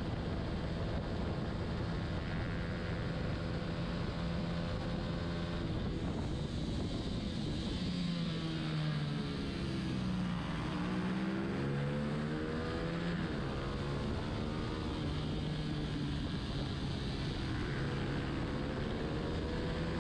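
Honda CBR125R's single-cylinder four-stroke engine running near the limit, its pitch dropping as the bike slows for a tight corner about eight seconds in, then climbing again in steps through the gears and holding high, over steady wind rush.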